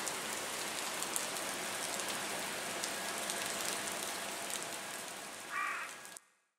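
Steady heavy rain falling on the pier and harbour, with scattered taps of single drops. Near the end a brief higher-pitched sound rises above the rain, then the sound cuts off suddenly.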